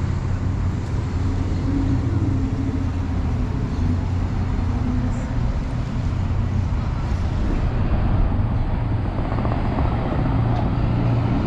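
Steady city road traffic: cars passing on the street alongside, a continuous low rumble that swells a little as vehicles go by near the end.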